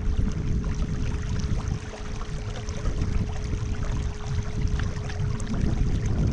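Kayak gliding on a calm river: a steady low rumble of water and wind noise on the microphone, with a faint steady hum and scattered small ticks.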